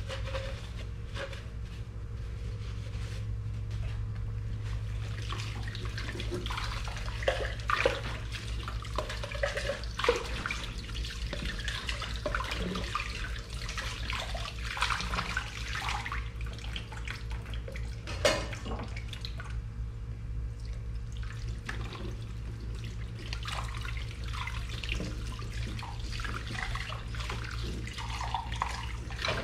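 Dishes being washed at a kitchen sink: running tap water with clinks and knocks of dishes now and then, the sharpest about 18 seconds in, over a steady low hum.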